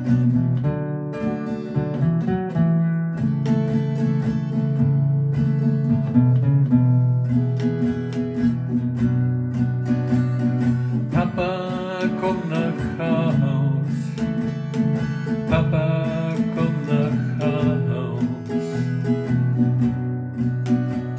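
Acoustic guitar music: an instrumental passage between sung verses, the guitar played over sustained low notes, with a melody line that bends in pitch around the middle.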